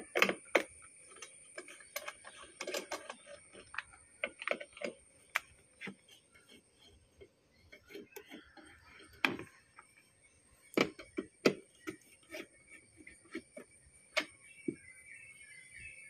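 Irregular small clicks, taps and clinks of a hex key working screws in and out of the scooter's plastic under-seat storage panels, with a few sharper knocks about 9 and 11 seconds in.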